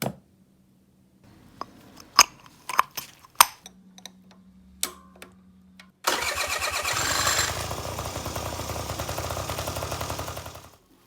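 A few scattered clicks, then about six seconds in the Honda Leader 50 scooter's small engine starts up and runs with a fast, even pulsing before cutting out near the end.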